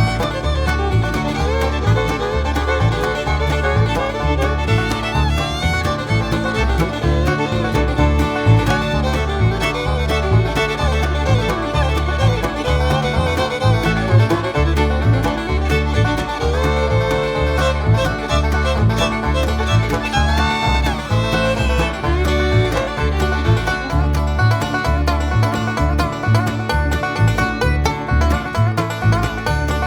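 Background bluegrass-style music with fiddle, banjo and guitar over a steady beat.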